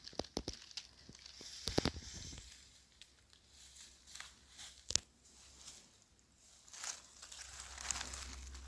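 Quiet rustling and crackling of brush and clothing, with scattered small snaps: a cluster about two seconds in and a single sharp click about five seconds in.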